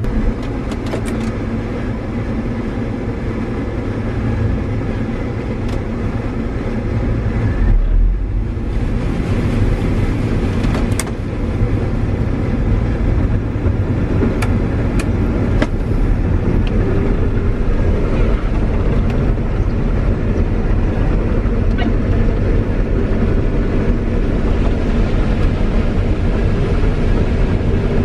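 CLAAS combine running while harvesting corn, heard from inside the cab: a steady low engine and machine drone, with a few short clicks near the middle.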